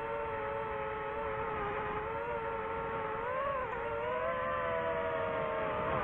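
DJI FPV quadcopter's motors and propellers whining steadily in flight, the pitch briefly rising and then dipping about three and a half seconds in as the drone banks into a dive.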